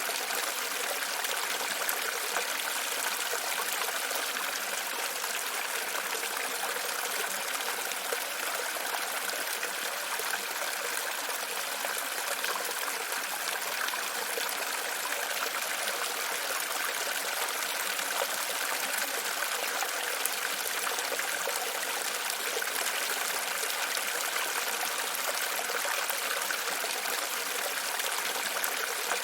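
Water running and trickling steadily, with no change in level.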